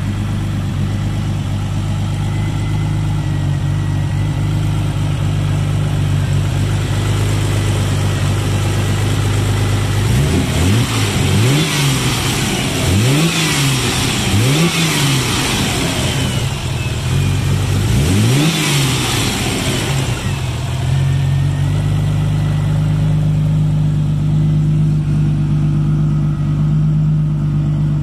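Mitsubishi 3000GT VR-4's twin-cam V6, converted to a single Precision 6870 turbo, idling steadily. About ten seconds in it is revved in several quick throttle blips, each followed by a falling turbo whistle, then it settles back to idle.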